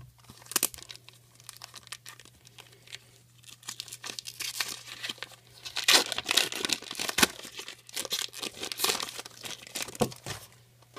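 Foil trading-card pack wrappers being torn open and crinkled by hand, in irregular crackly bursts that are loudest in the middle of the stretch.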